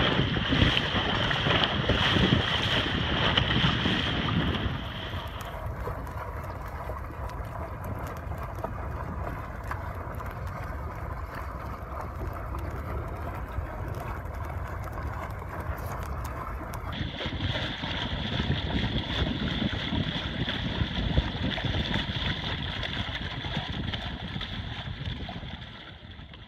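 Wind buffeting the microphone and water rushing past a small wooden sailboat under way in choppy water. It is loudest for the first few seconds, then quieter, and builds again about two-thirds of the way through.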